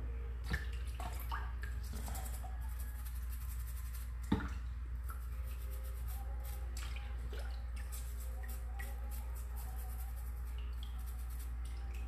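A quartz crystal being scrubbed with a toothbrush over a tub of muddy water: rapid brushing strokes with dripping and small splashes. There are two sharp knocks, about half a second in and just after four seconds, over a steady low hum.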